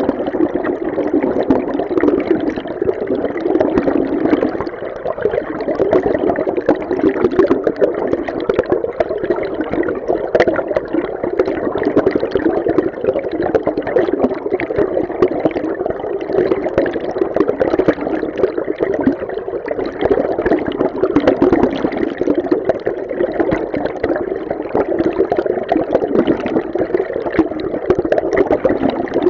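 River stream heard underwater: a steady, muffled rush of flowing water, its energy low and dull, with fine fizzing above and no distinct events.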